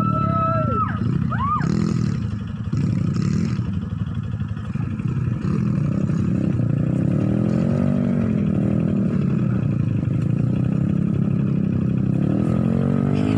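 Dirt bike engine running steadily, its pitch rising and falling a few times as the throttle is blipped.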